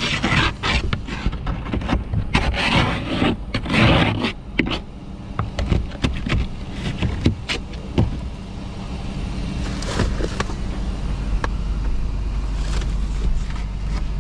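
A broom sweeping and scraping snow and ice off a pickup truck's windshield, heard from inside the cab: a run of rough sweeping strokes and knocks against the glass, thinning out after about eight seconds. Underneath is a low steady rumble that grows louder toward the end.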